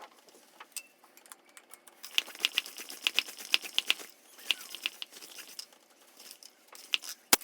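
A mallet pounding a partly inflated bicycle tire in quick runs of sharp knocks, done to settle the inner tube and work out any twist in it.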